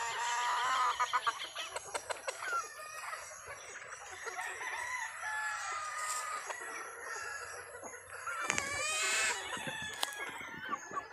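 A large flock of chickens, roosters and hens, clucking and calling over one another while feeding at a trough, with a rooster crowing; the loudest call comes a little before the end.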